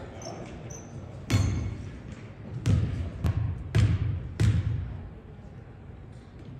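A basketball dribbled on a hardwood gym floor, about four sharp bounces at uneven spacing over three seconds: a player bouncing the ball before a free throw.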